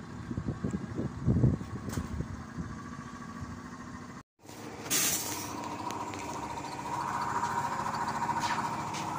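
Street traffic at a stop, vehicle engines running past with the loudest pass about a second and a half in. Then a short, sharp hiss of air, followed by the steady whine and hum of the AKSM 32100D trolleybus standing at the stop as passengers board.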